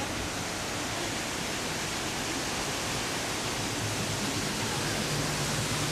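Steady rush of water from an artificial cascade in a park water garden, heard from right under it and getting slightly louder.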